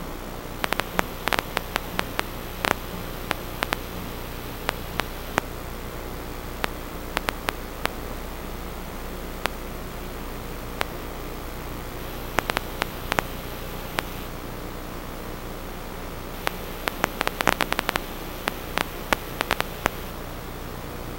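Steady electrical static hiss with a faint hum, broken by many sharp clicks in irregular clusters.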